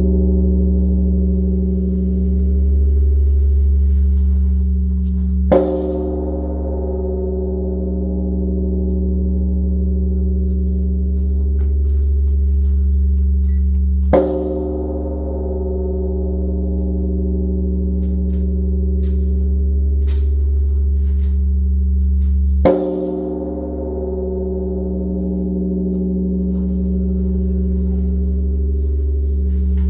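A large bronze Korean temple bell (beomjong) is struck three times, about eight and a half seconds apart. Each stroke is a dull hit followed by a long, deep hum that slowly swells and fades and rings on into the next stroke.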